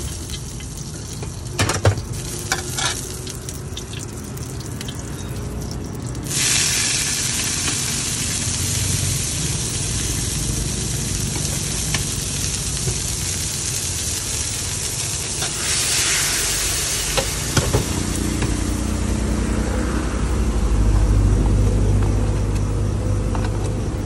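Green vegetables stir-frying in a hot steel wok, with a metal spatula clinking on the wok. A few clanks of the spatula come first, then a sudden loud sizzle starts about six seconds in and keeps going, flaring up again around sixteen seconds.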